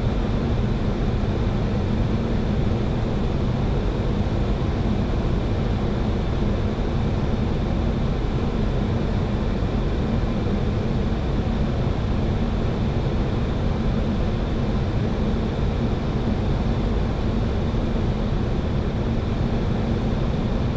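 Steady cockpit noise of a Boeing 737-800 on short final approach: air and engine noise at an even level, with a faint steady low hum underneath.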